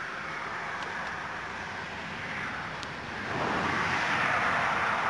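Road traffic noise: a car passing close by, with tyre and engine hiss that swells louder a little over three seconds in.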